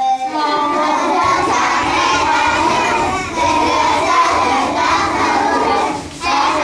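A roomful of children singing and shouting an action song together, many voices at once. The voices drop briefly about three seconds in and again near the end.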